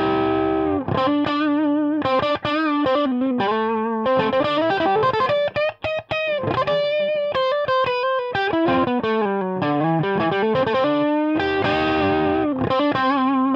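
Electric guitar played through a conventional copper guitar lead into a Chandler amp head and Marshall cabinet: a short improvised noodle of held notes with vibrato and quick runs.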